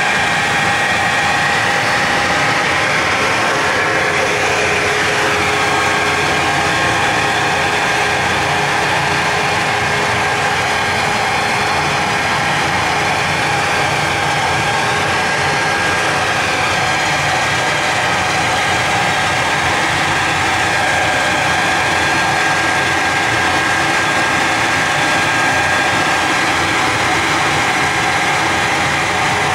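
A machine running steadily: a loud, even mechanical noise with a few constant tones on top, unchanging throughout.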